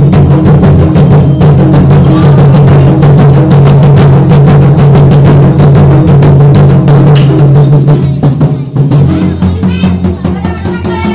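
Loud percussion music: fast, dense drum strokes over a steady low drone, thinning out somewhat after about eight seconds.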